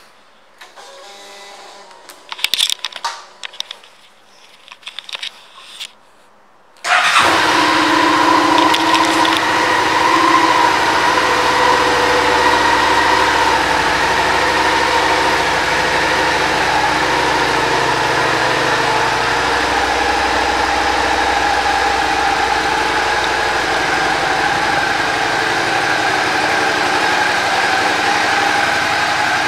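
2022 Suzuki SV650's 645 cc V-twin engine starting up about seven seconds in, a little louder for the first few seconds, then settling into a steady idle. A few faint clicks and handling noises come before the start.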